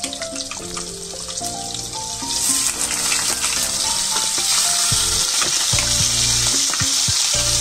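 Paneer cubes frying in hot oil and butter in an aluminium kadai: a steady sizzle that grows much louder about two seconds in, with a few clicks of a steel spatula in the later seconds. Soft background music with a simple melody plays underneath.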